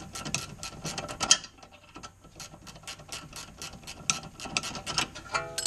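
Socket ratchet clicking in quick runs as it backs out a 13 mm rear brake caliper bolt, with a pause of about a second in the middle.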